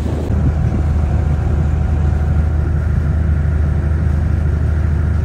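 A boat's engine running with a steady low hum, heard from on board the boat.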